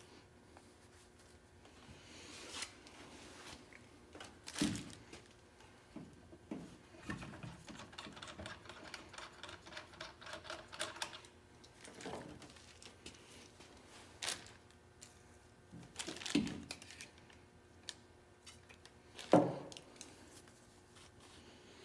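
Workbench handling noise: scattered knocks and clicks of tools and fuel pump parts being set down and worked, with a run of rapid, even ticking about seven seconds in and the loudest knock near the end.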